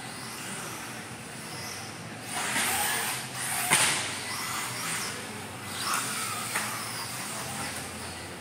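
Radio-controlled off-road car driving on an indoor track: motor and tyre noise that surges in bursts as it accelerates, with a sharp knock a little under four seconds in and another about six and a half seconds in.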